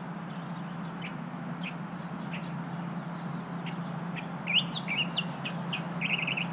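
Small birds chirping in short scattered calls, with a few louder sweeping notes about two-thirds of the way in and a quick trill near the end, over a steady low hum and a faint wash of background noise.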